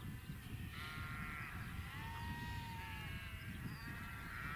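Several sheep bleating, about four wavering calls, one after another and overlapping.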